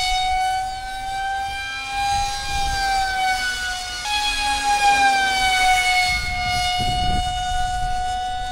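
An electric RC jet in flight, its motor giving a steady, siren-like high whine with overtones. The pitch drifts slightly with throttle and jumps abruptly about four seconds in. A gust of wind noise on the microphone comes near the end.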